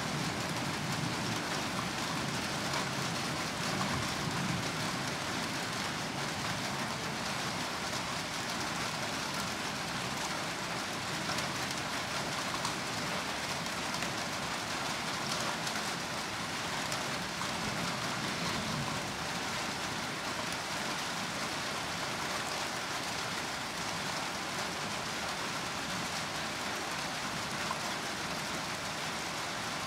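Steady rain falling during a thunderstorm, an even hiss with no thunder yet.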